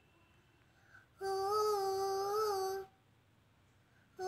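A young girl's unaccompanied voice holding one long sung note, about a second and a half, with a slight wobble in pitch, starting about a second in; a second held note begins right at the end.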